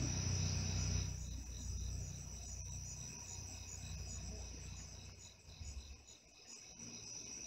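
Crickets chirping in a steady, evenly pulsing high trill. A low rumble, the loudest sound at the start, fades out about six seconds in.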